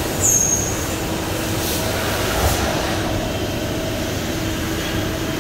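DMG MORI NTX2000 CNC turn-mill running: a steady mechanical hum with a faint steady tone, a brief high whine near the start and a short knock about two and a half seconds in.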